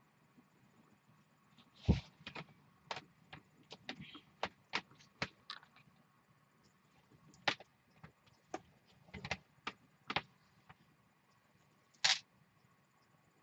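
Irregular clicks, taps and knocks of cables and small plastic cable-management parts being handled on a desk, with two louder knocks about two seconds in and near the end.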